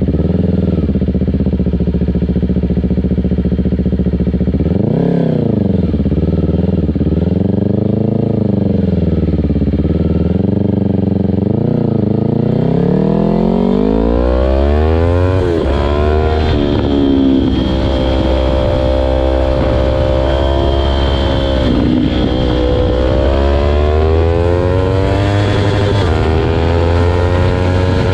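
Yamaha R3's parallel-twin engine through an aftermarket Akrapovic muffler, revving up and down, then pulling in a long rising climb of pitch that drops back several times, as at gear changes.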